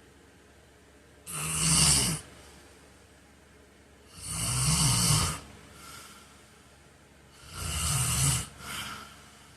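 A man snoring in his sleep: three loud snores about three seconds apart, the last two each followed by a shorter, softer breath.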